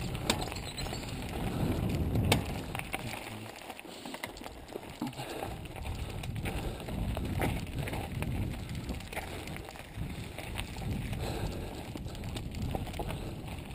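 Mountain bike rolling fast over a rocky dirt trail: tyres crunching on gravel and loose stones, with the bike rattling and clicking over the bumps and one sharp knock about two seconds in.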